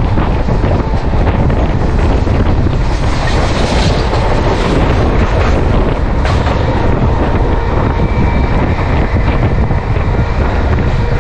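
Mumbai suburban electric local train running at speed, heard from its open doorway: a steady rumble of wheels on rails, with wind on the microphone and scattered clicks of the wheels over rail joints.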